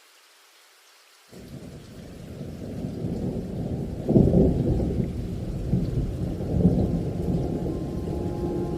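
Low rumbling noise that starts suddenly out of silence and builds, with two louder swells, like thunder; a few steady musical tones come in near the end.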